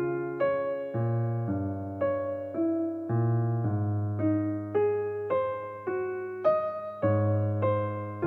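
Background music: a gentle electric piano melody, one note struck about every half second over sustained bass notes.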